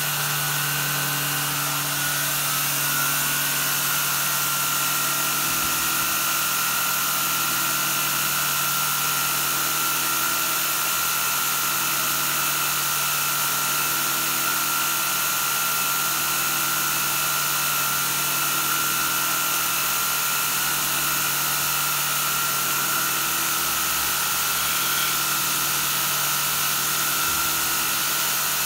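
Belt grinder with a polishing-wheel attachment running steadily on its variable-speed drive at about 55 Hz: a constant motor hum and whine, with a slow regular pulse about every two seconds.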